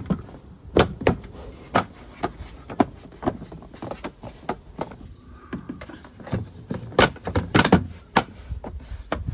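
Plastic trim pieces with their retaining clips being handled and pressed into place on a car's liftgate: an irregular string of sharp plastic clicks and knocks, a few each second, with a louder cluster about seven seconds in.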